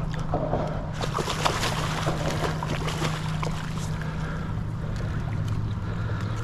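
A hooked redfish splashing and thrashing at the water's surface as it is reeled in on a heavy rod, with sharp splashes clustered in the first few seconds. A steady low hum runs underneath and drops lower in pitch about five seconds in.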